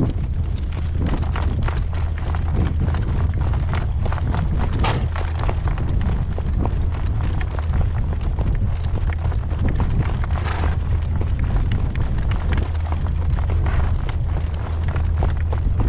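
Gale-force wind buffeting the microphone as a heavy, steady rumble, with scattered irregular knocks through it.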